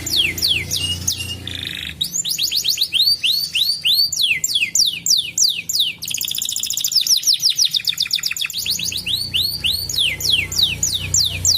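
Domestic canary singing a continuous song of fast repeated downward-sweeping trills, changing to a new phrase every second or two. It includes a buzzy note near the start and a very rapid, dense trill a little past the middle.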